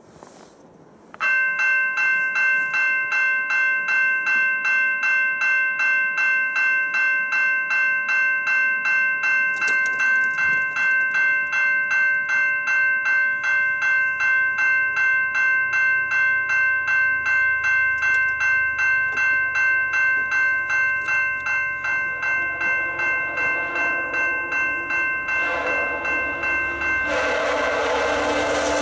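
Level-crossing warning bell starts ringing about a second in and keeps up an even, pulsing ring as the gates come down. In the last few seconds a low rumble builds and the horn of an approaching VIA Rail F40PH-2 locomotive comes in over the bell, loudest at the end.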